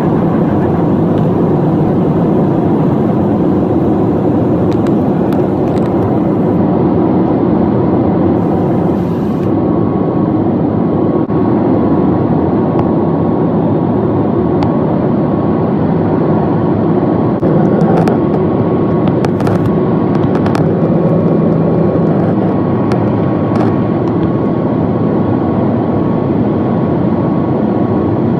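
Jet airliner cabin noise during the climb after takeoff: a steady, loud rush of engine and airflow noise heard inside the cabin, with a faint steady whine joining about ten seconds in.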